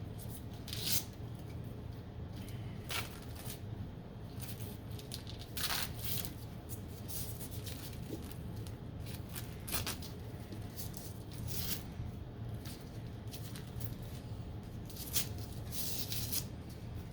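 Rustling and scattered light clicks as plastic ISA slot connectors are handled and picked out of their package.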